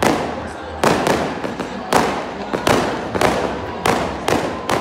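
Aerial fireworks bursting overhead: a run of about eight sharp bangs, roughly one or two a second, each with a short echoing tail.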